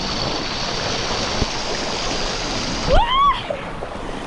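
Steady rush of river water flowing through the waterfall pools. About three seconds in, a thump and a short high call that rises and falls cut across it, and another call comes right at the end.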